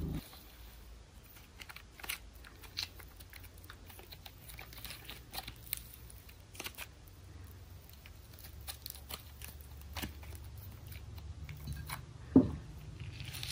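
Thick striped slime being pressed, folded and pulled apart by hand, giving scattered faint sticky crackles and small clicks, with one louder pop near the end.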